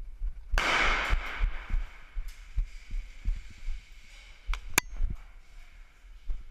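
Footsteps of a player moving with a body-worn camera, picked up as repeated low thuds. About half a second in, a loud hissing rush fades out over a second or so. A couple of sharp clicks follow near the end.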